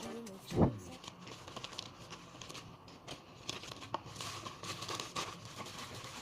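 Plastic packaging being handled while an order is packed: scattered crinkling and tearing, with a single thump about half a second in.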